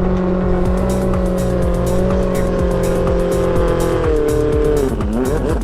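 A racing jet ski engine running at high, steady revs, then dropping sharply in pitch near the end and climbing again as the throttle is chopped and reopened. Background music with a steady beat plays along.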